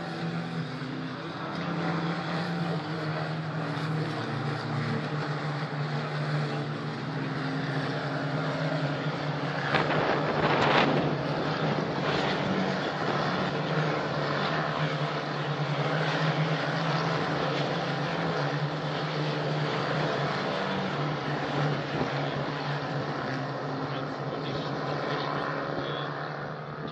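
Formula 4 race cars (Tatuus single-seaters with 1.4-litre turbo Abarth engines) running on the circuit, with a steady engine drone throughout. One car passes loudly about ten seconds in.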